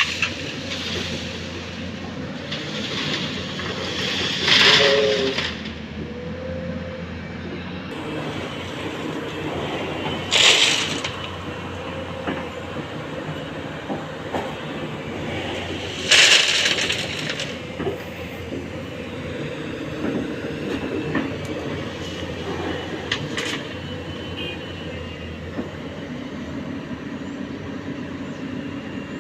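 Heavy diesel engines of an excavator loading a tipper truck, running steadily. Three loud, rushing noise bursts about a second long come roughly six seconds apart, with a weaker one later.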